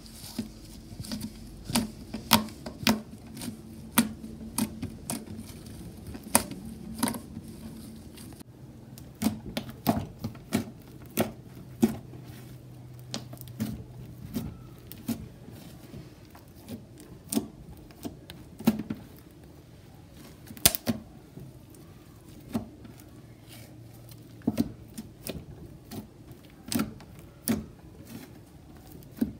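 Slime being squeezed, pressed and poked by hand, making irregular sharp clicks and pops, several a second at times.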